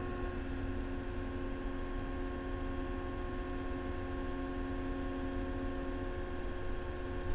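Cat small wheel loader's diesel engine running steadily at about 1,800 rpm, heard from inside the cab as a steady hum with several even tones, while the lift arms are lowered slowly through a payload scale calibration cycle.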